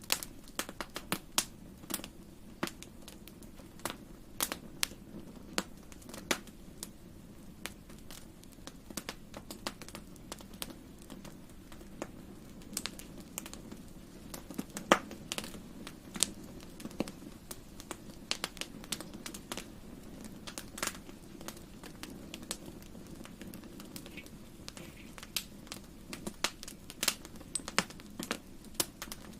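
Wood fire in a fireplace crackling: irregular sharp pops and snaps, the loudest about halfway through, over a steady low rush of the burning.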